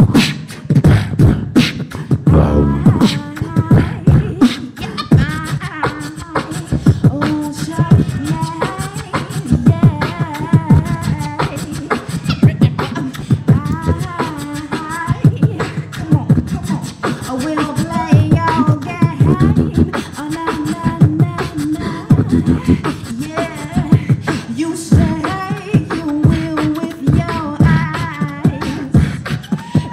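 Two beatboxers performing a live duet into handheld microphones: a fast, continuous beat of vocal kick drums, snares and clicks, with a pitched vocal melody and bass line woven through it.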